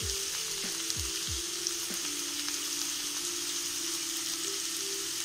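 Chopped vegetables frying in hot oil in a pan: a steady sizzle, with a few low thumps in the first second and a half as cauliflower is tipped in.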